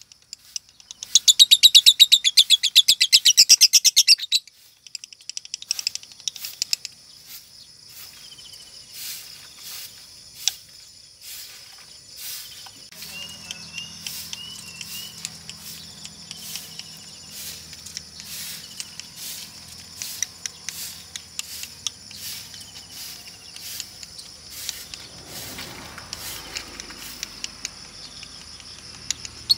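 Female lovebird giving a loud, very rapid chattering trill from about a second in, lasting some three seconds. Then come quieter scattered clicks and a few short high chirps. Lovebird keepers take this changed song as a sign of a 'konslet' female.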